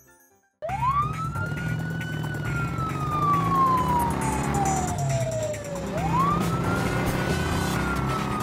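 Police siren wailing, starting suddenly: each wail climbs fast and then falls slowly over about five seconds, with a second wail starting about six seconds in. Under it a three-wheeled Polaris Slingshot's engine is running as it drives.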